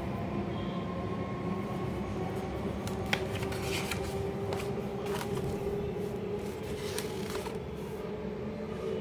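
Stiff paper pages of a project file being turned by hand: rustling and crackling from about three to seven seconds in, with a sharp tick just after three seconds. Under it runs a steady low rumble with a faint hum.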